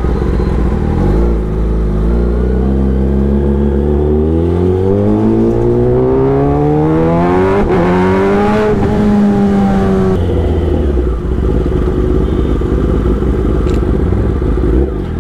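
Kawasaki Ninja ZX-10R inline-four motorcycle engine accelerating hard, its revs climbing steadily for several seconds, holding briefly, then falling away about ten seconds in as the throttle closes and the bike settles back to cruising.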